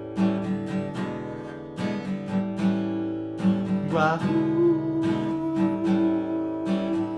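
Acoustic guitar strumming a blues accompaniment between sung lines, with a long held note joining in about four seconds in.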